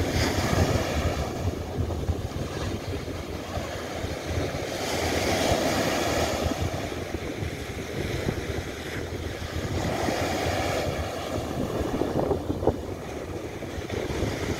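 Surf washing onto a sandy beach, swelling as waves break about five and ten seconds in, with wind rumbling on the microphone.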